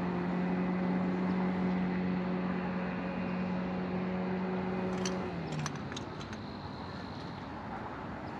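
Boat's outboard motor running at a steady pitch across the water, then dropping in pitch and fading about five seconds in as it throttles down or moves off. A few light clicks come at about the same time.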